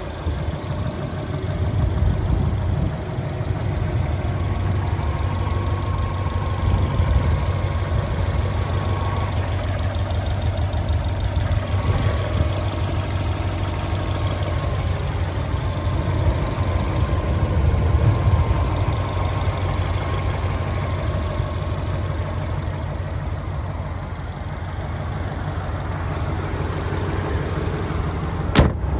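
Turbocharged Subaru Impreza STi flat-four boxer engine idling steadily with the bonnet open, a forged Prodrive build. A single sharp click near the end.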